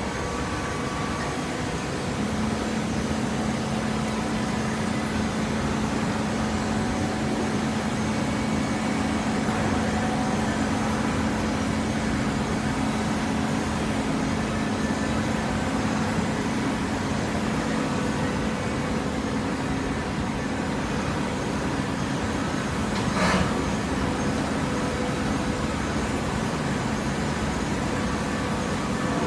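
Hydraulic cardboard baling press running: a steady mechanical hum from its motor and pump, which settles into an even tone about two seconds in, with one sharp knock near the end.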